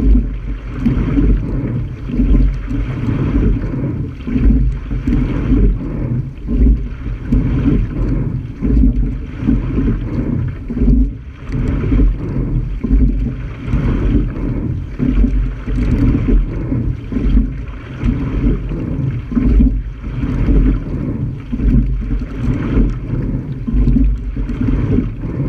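Water rushing along the hull of a single rowing scull, with wind buffeting the camera microphone. The noise swells and fades every couple of seconds with the sculler's strokes.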